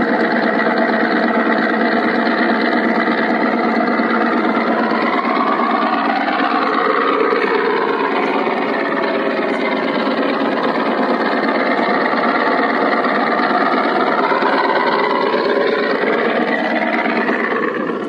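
A ship's diesel engine running steadily at high power under heavy load, heard from the deck near its exhaust stack. The vessel is aground, so the engine is being forced and overloaded.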